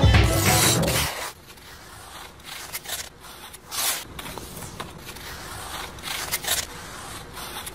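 Background music that ends about a second in, followed by irregular swishing scrapes of hockey skate blades on ice.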